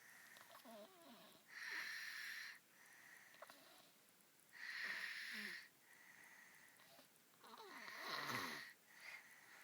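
Toddler snoring, very mild: a breathy snore about every three seconds, three louder ones in all, with fainter snoring between them.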